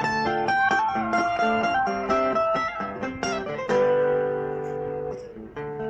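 Acoustic guitar picking a melodic passage, single notes and chords ringing one after another, with a longer held note about midway.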